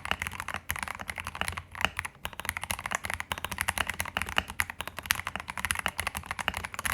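Typing on a modded Royal Kludge RK68 mechanical keyboard: a fast, uneven run of keystroke clacks.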